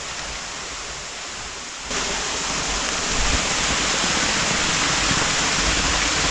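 Rushing water from a creek or small falls: a steady hiss that suddenly gets louder about two seconds in.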